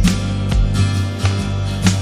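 Background music: the instrumental gap between two sung lines of a pop song, with a steady beat.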